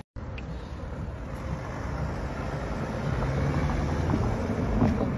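BMW 7 Series saloon driving slowly past at close range: a low engine and tyre rumble that grows louder toward the end.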